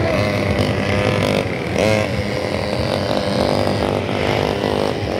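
Small ATVs and mini motorbikes running as they circle a dirt field, several engines overlapping, their pitch rising and falling as they speed up and slow down.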